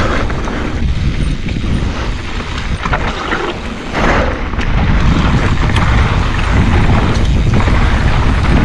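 Wind buffeting the microphone over the rolling noise of a mountain bike riding fast down a dirt trail, with short clicks and clatters from the bike running through it.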